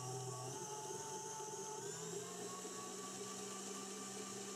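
Electric stand mixer running steadily, its wire whisk whipping a thick body butter base in a stainless steel bowl. The motor's pitch steps up slightly about two seconds in.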